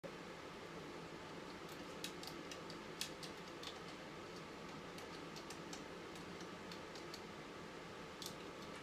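A few small scattered clicks and taps of metal cable terminals and clamps being handled while inverter cables are fitted, a cluster of them about two to three and a half seconds in and a couple more near the end, over a steady low hum.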